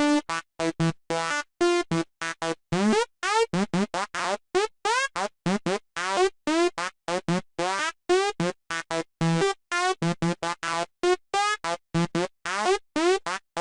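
Sylenth1 software synth playing a high-pitched psytrance night full-on lead: a fast run of short, separate staccato notes, several a second. From about two seconds in, each note bends upward in pitch as pitch modulation is applied.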